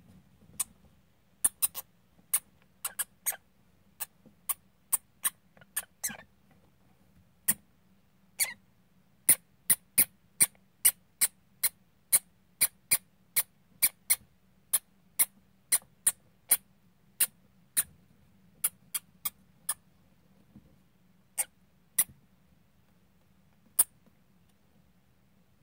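Russian dwarf hamsters squeaking as they play-fight: dozens of very short, sharp, high-pitched squeaks, irregular at first, then about two a second through the middle, thinning out near the end.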